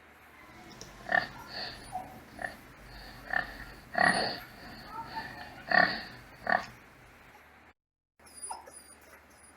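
Pigs grunting, a string of short grunts about half a second to a second apart, the loudest a little after the middle, with faint bird chirps behind. The audio drops out for a moment near the end.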